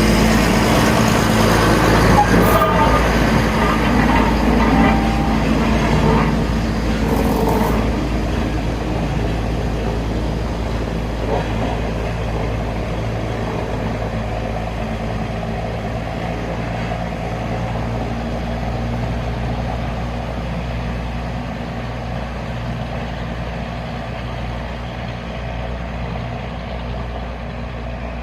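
Diesel shunting locomotive engine running with a steady low hum, slowly getting quieter. Hiss and higher squealing tones over it for the first several seconds.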